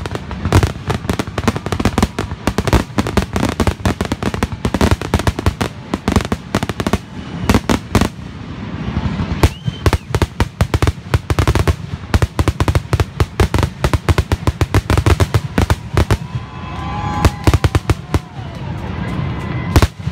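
Fireworks finale barrage: a rapid, dense string of bangs from bursting shells, thinning out near the end, with a few whistling glides between the bursts.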